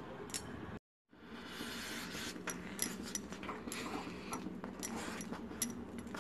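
Silicone spatula stirring and scraping thick cooked semolina dough around a nonstick pan, with soft scrapes and light knocks on the pan. The sound cuts out for a moment about a second in.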